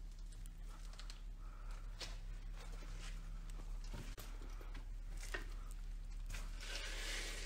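Faint, irregular footsteps over a floor strewn with rubble and debris, over a steady low hum.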